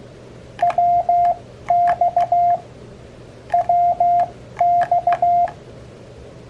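Morse code (CW) sidetone from an Elecraft KX3 transceiver keyed with a paddle: a single steady beep of a little under 1 kHz sent in short dots and longer dashes. It comes as four short groups, the same pair of characters sent twice, over a faint steady hiss and hum.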